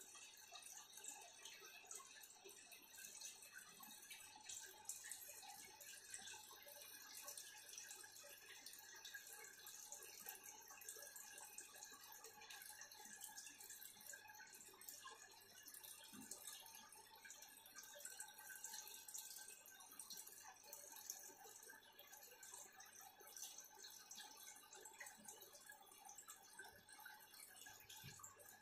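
Faint, steady trickling and dripping of aquarium water.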